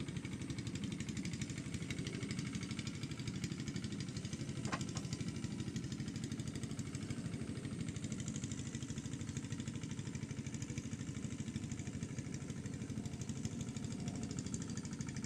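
A hand tractor's small engine running steadily, with a fast, even beat.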